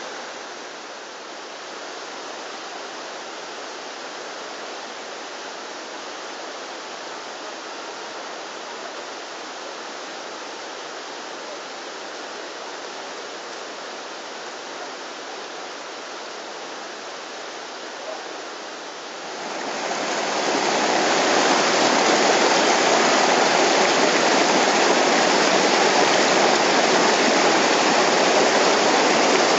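Running water: a steady wash of water trickling and dripping off an ice-hung rock ledge. About twenty seconds in, it swells to a much louder, fuller rush of a stream cascading over rock slabs.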